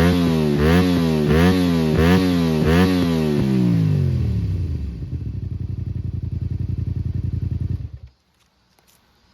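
Honda VTR250's 250cc V-twin, running through a baffle-less Valiente Allegria titanium muffler, revved in a series of quick throttle blips, roughly one every half second or so. About three seconds in the revs fall back to a pulsing idle, and the engine is switched off about eight seconds in.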